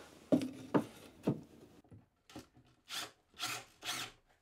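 Pieces of wood knocking three times against an OSB cabinet, then several short rubbing scrapes of an OSB drawer sliding on wooden runners as it is pushed in.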